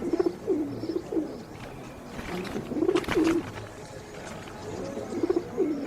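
Pigeons cooing repeatedly in low, throaty calls. Partway through there is a brief burst of sharp rustling noise.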